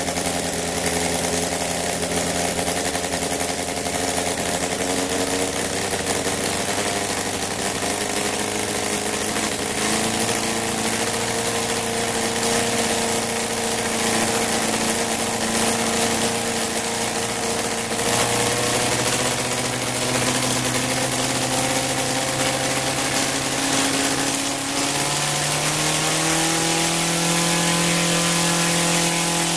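ROTO 170 cc horizontally opposed four-cylinder four-stroke model aircraft engine running on a test bench, driving a 30 x 12 wooden propeller. It runs steadily, changes speed in small steps a few times, and picks up speed near the end.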